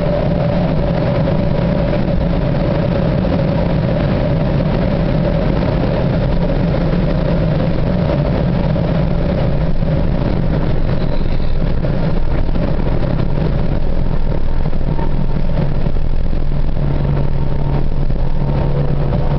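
Semi truck's diesel engine running steadily at highway cruising speed, heard from inside the cab, over a steady hum of road and tyre noise.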